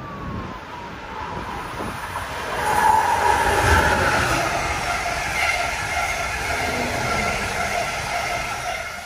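Amtrak passenger train led by a Siemens ACS-64 electric locomotive passing at speed. The rushing noise swells sharply as the locomotive goes by about three seconds in, then holds loud as the coaches run past on the rails, easing off near the end.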